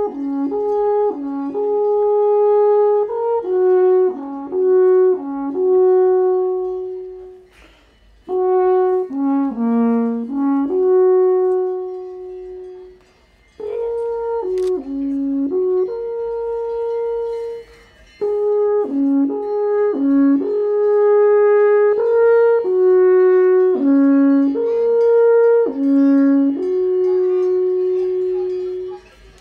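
Wooden alphorn played solo, a slow melody of held and stepping notes in four phrases with short breaks between them.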